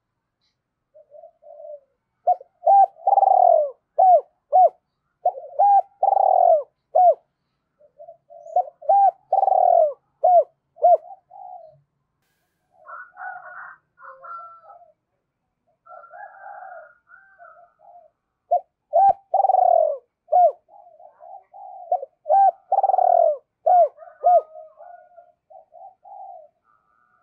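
Spotted dove cooing: about four loud phrases of short, repeated coos, with quieter broken calls between them in the middle.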